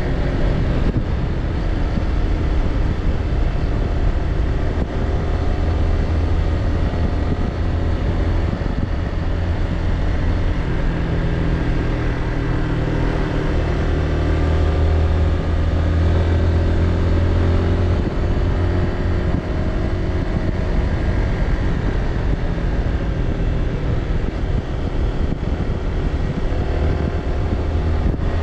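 Motor scooter engine running at road speed, its note rising and falling with the throttle, over a heavy, steady rumble of wind and road noise.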